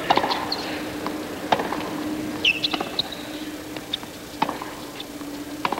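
Tennis rally on a hard court: the ball struck by racquets about every second and a half, starting with the serve, with tennis shoes squeaking on the court between shots, over a low steady hum.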